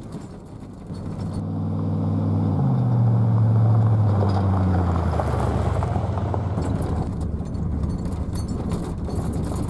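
A truck's engine running on a gravel road: its note swells, drops in pitch about two and a half seconds in and slowly fades, leaving a steady rough rumble of tyres on gravel.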